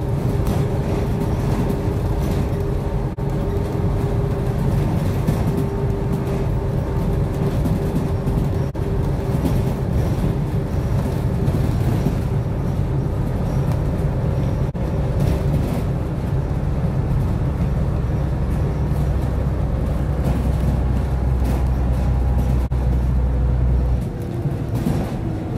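Steady engine and road noise of a road vehicle driving along a country road, heard from on board. Near the end the deepest part of the drone drops away, as the engine eases off.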